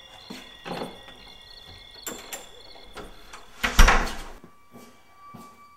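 A wooden front door slammed shut: one heavy thud about three and a half seconds in, after a few lighter knocks.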